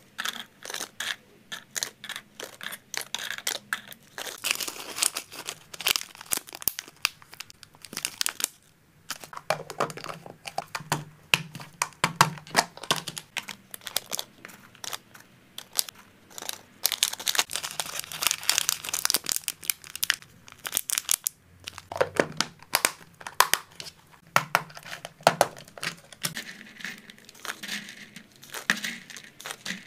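Small clear plastic zip bags crinkling, with hard plastic containers clicking and tweezers and a spoon scraping through dry hamster snacks. The crinkling and clicking come in dense clusters with brief pauses.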